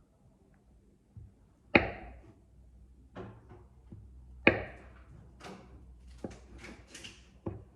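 Kitchen knife knocking on a cutting board while strawberries are cut, a few separate sharp knocks, two of them much louder than the rest, with lighter clicks between.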